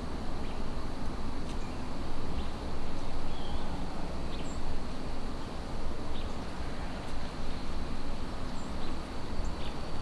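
Outdoor ambience: an uneven low rumble of wind on the microphone, a steady high insect drone, and a few faint, short bird chirps scattered through.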